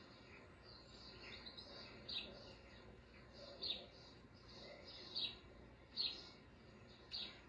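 A run of short, high-pitched chirps, each sliding down in pitch, about one every second or so, over a faint steady hiss.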